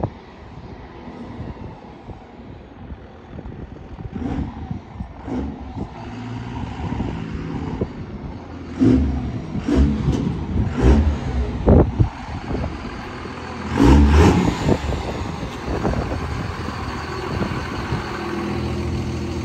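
Lifted second-gen Dodge Ram's stock 24-valve 5.9 Cummins turbo-diesel, with only an aftermarket exhaust, revving in a series of short throttle bursts as the truck drives up. It then settles to a steady idle.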